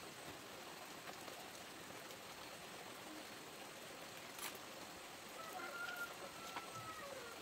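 Quiet outdoor ambience: a steady hiss with a single sharp click about halfway through, and a faint long, even-pitched call near the end.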